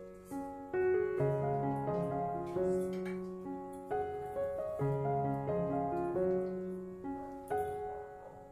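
Background piano music: a gentle melody of single notes that start and fade away, with a few soft chords underneath.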